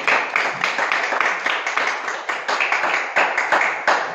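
A congregation applauding: many hands clapping in a quick, dense patter.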